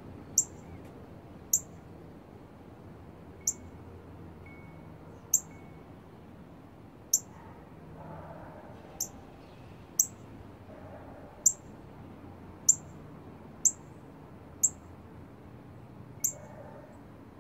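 Northern cardinal giving sharp, high chip calls, about a dozen of them spaced a second or two apart.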